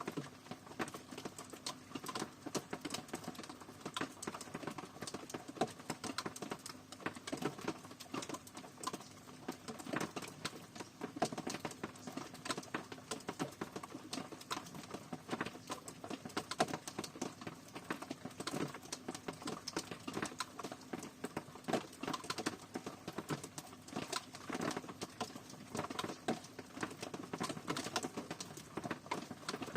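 Rain falling, with many drops tapping irregularly and closely on a surface over a light hiss.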